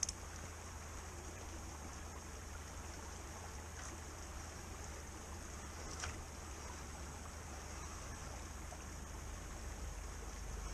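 Shallow creek water trickling over stones, a steady watery hiss, with a few faint clicks.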